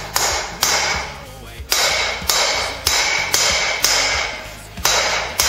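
Hand hammer striking hot 3/8-inch round steel bar on an anvil, about two blows a second with two short pauses, each blow ringing: forging a taper.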